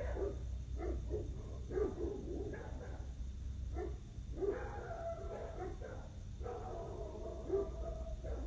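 A dog barking in short, irregular barks over a steady low rumble.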